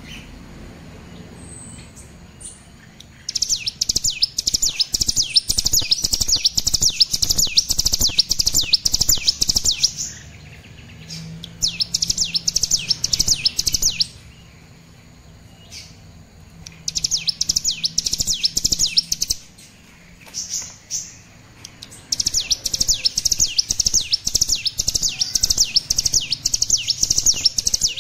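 A juvenile brown prinia (cigun) practising its song: long runs of rapid, evenly repeated high chirping notes, several runs of a few seconds each with short pauses between. It is a young bird still learning its song.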